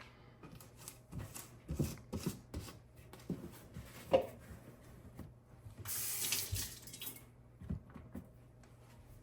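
Kitchen work: a string of knocks and clinks from utensils and containers, the loudest just after four seconds in, then a tap running for about a second around six seconds in.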